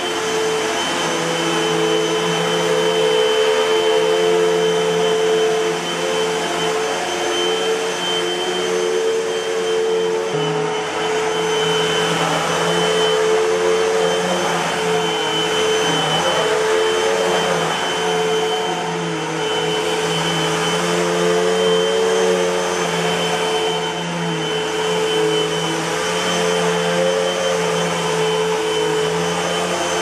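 Hoover WindTunnel 2 Pet Rewind bagless upright vacuum cleaner running on carpet: a steady motor whine over rushing airflow. Its level swells and dips slightly every few seconds as it is pushed back and forth.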